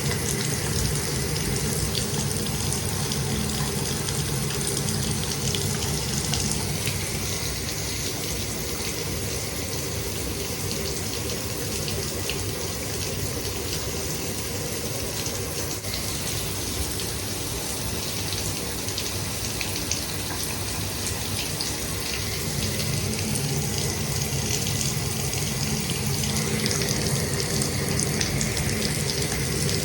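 Shower running steadily, water spraying and splashing with a continuous hiss, dipping a little in the middle and swelling again near the end.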